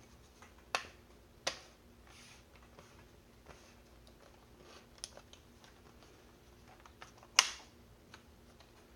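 Plastic clips of a laptop's screen bezel snapping into place as it is pressed down around the edges: a few separate sharp clicks, the loudest near the end.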